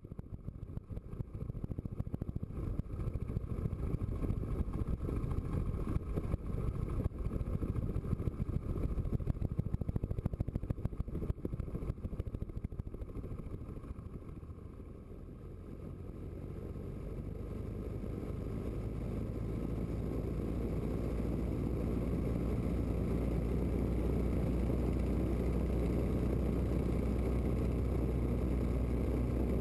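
Open-cockpit biplane's engine running at low power while taxiing, with an uneven, choppy rumble. About halfway through it dips briefly, then the power comes up to a steady, louder drone.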